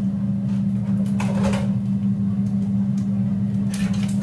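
Steady low electrical hum of a kitchen appliance, with a short clatter about a second in and a light click near the end.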